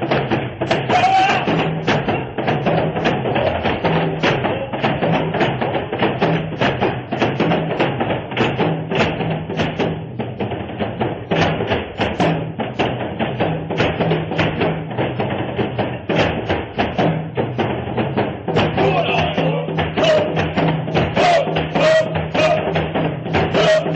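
Tribal-style dance music driven by dense, fast drumming. A chanting voice joins over the drums in the last few seconds.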